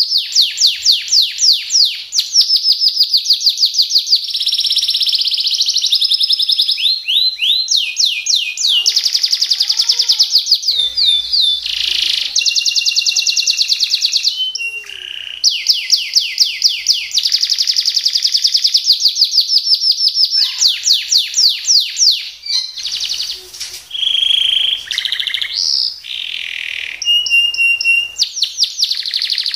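Domestic canary singing in fast rolls: long rapid trills of evenly repeated high notes ('roll' and 'tembak' phrases), some sweeping down in pitch. There are short breaks in the song a little before halfway and again about three-quarters through.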